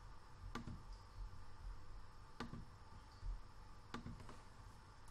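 Computer mouse clicking, faint: three distinct clicks a second or two apart, with a few softer ones between.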